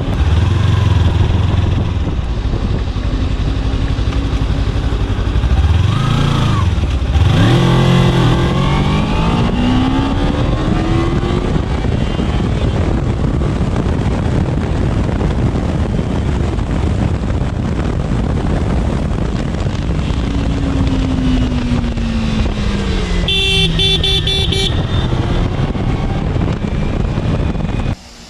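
Kawasaki Ninja 300's parallel-twin engine running under way. Its pitch blips and then climbs steadily as the bike accelerates, about six to twelve seconds in, and falls as it slows, a little after twenty seconds in. A vehicle horn sounds for about a second and a half near the end.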